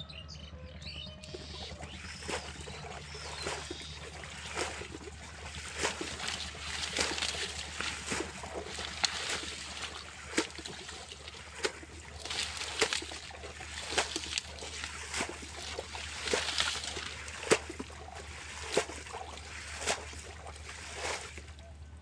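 Shallow muddy water splashing and sloshing in short, irregular bursts as someone wades and gropes through it by hand.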